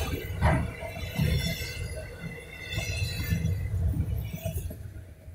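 Rear cars of a freight train rolling past: a low rumble of wheels on rail with clicks and a knock about half a second in, and metallic clinking and rattling from the autorack cars. It fades as the end of the train goes by, dropping away near the end.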